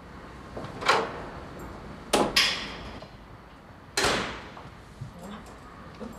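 A flat's front door and metal grille security gate being opened: three sharp clanks, about a second in, a doubled one just after two seconds, and one at about four seconds with a ringing tail.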